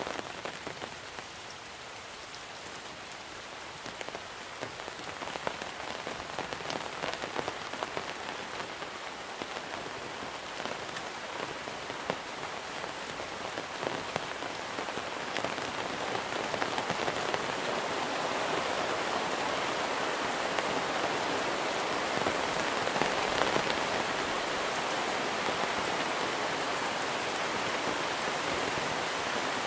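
Monsoon rain falling steadily, with individual drops pattering, growing heavier and louder through the first half and staying at that level for the rest.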